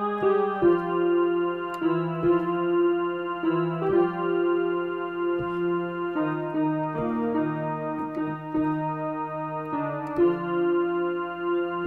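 Electronic keyboard playing an instrumental passage: held melody notes over sustained chords, changing every second or so.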